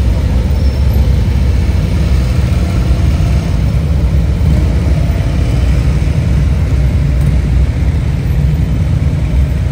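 Police motorcycles riding slowly past in a group, several engines running together at low speed in a loud, steady, low-pitched drone.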